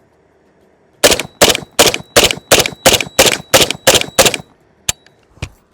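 Zastava ZPAP92 AK pistol fired semi-automatically in a quick string of about a dozen loud shots, roughly three a second, followed by two lighter metallic clicks near the end.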